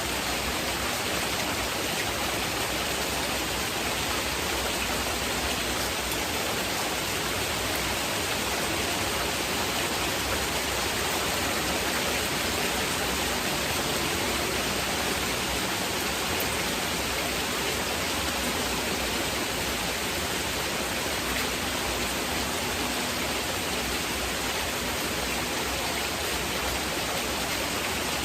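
Steady heavy rain mixed with a constant hiss of masking noise, even and unbroken throughout.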